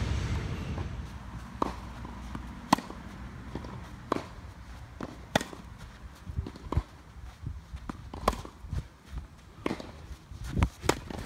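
Tennis balls hit back and forth in a warm-up rally on a clay court: sharp racket strikes about every one and a half seconds, with softer ball bounces and shoe scuffs on the clay between them.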